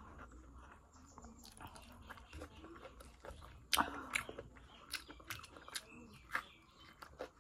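A person eating curry and rice by hand: chewing with wet mouth smacks and clicks, irregular, the loudest a little before four seconds in.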